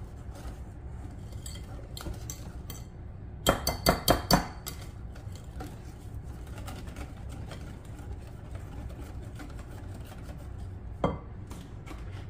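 Wire whisk stirring cake batter in a glass bowl, the wires clinking against the glass. A quick run of about five louder clinks comes about three and a half seconds in, and one more near the end.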